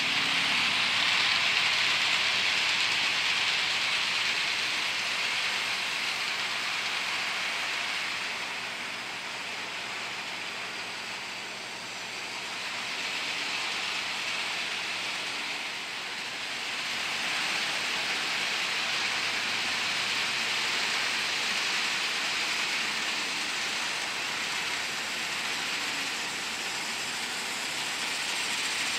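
HO scale model freight train, led by a Life-Like Chessie GP38 locomotive, rolling on its track: a steady rushing of small metal wheels on the rails. It is louder as the train passes close at the start and again in the last part, and fainter in between.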